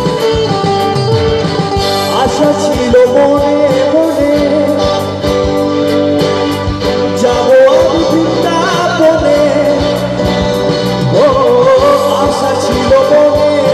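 Live band playing through a PA system: electric guitars, bass guitar and keyboard over a steady beat, with a sung melody line on top.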